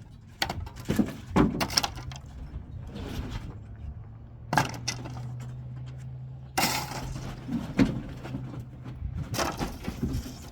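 Demolition debris from a house teardown being thrown out onto a dump pile: a series of irregular crashes and clatters from breaking and scraping pieces, over a steady low hum.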